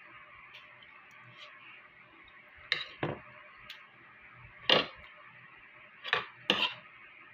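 A spoon clinking and scraping against a dinner plate during a meal, several short separate clinks a second or two apart over a faint steady hiss.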